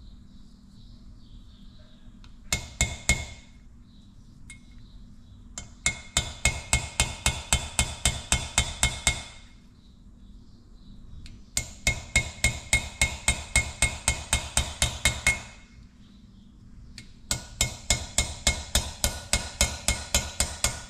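A small hammer tapping a valve-seal installer, driving new valve stem seals onto the guides of a Detroit Diesel 2-53 cylinder head. The metallic taps come quickly, four or five a second: a short burst, then three runs of several seconds each with pauses between.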